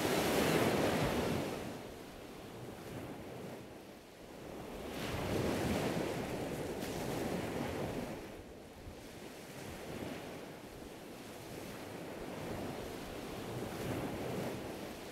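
Ocean surf: waves breaking and washing up the beach, rising and falling in slow swells every few seconds.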